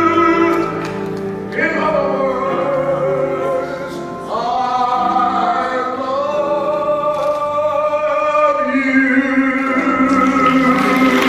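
Male vocalist holding long sung notes to close a jazz ballad, backed by a small band of piano, bass guitar and drums. Near the end the audience starts applauding.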